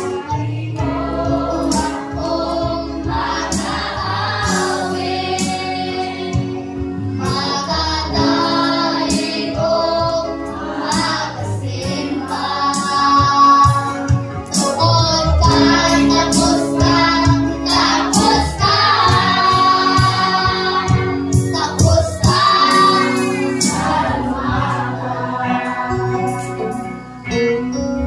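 A group of children and adults singing together in chorus, over a steady musical accompaniment.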